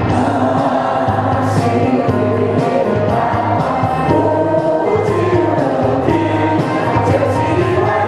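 A mixed choir of men and women singing together through microphones and PA speakers.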